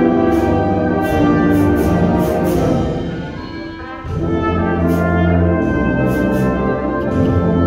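High school concert band playing, led by brass with tuba and low brass underneath, sustained chords punctuated by sharp percussion strikes. The band thins out and softens about three seconds in, then comes back with a loud full low-brass chord at about four seconds.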